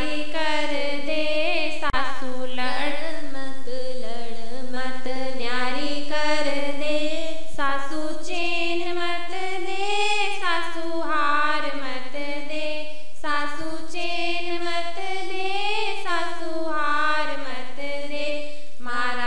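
A woman singing a Rajasthani banna-banni wedding song (vivah geet) without instruments, in a continuous melody with gliding, ornamented long notes.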